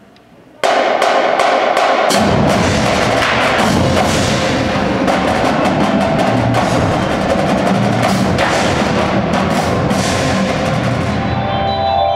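Percussion ensemble coming in all at once after a brief hush: marching snare, tenor and bass drums playing loud, dense rhythms with the front ensemble, the bass drums joining about two seconds in. Near the end the drums thin out and marimba notes come through.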